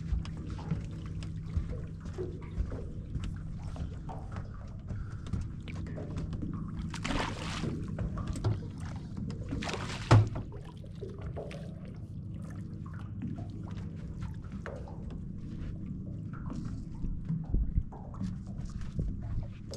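Lake water lapping and sloshing against a pontoon boat over a steady low hum, with scattered small knocks and clicks. Two louder rushes of noise come about seven and ten seconds in, the second ending in a thump.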